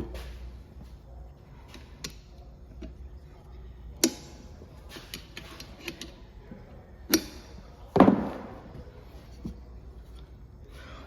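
A few separate knocks and clicks of hard objects being handled and set down. The loudest comes about eight seconds in and rings briefly.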